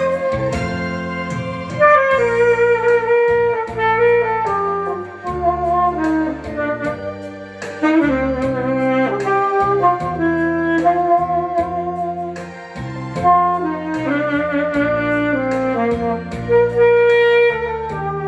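Saxophone playing a slow melody with vibrato over a backing track of chords, bass and drums.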